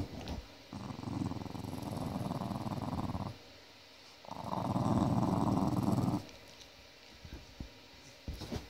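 Dog growling twice while a hand rubs its muzzle. Each growl lasts two to three seconds, with about a second's pause between them.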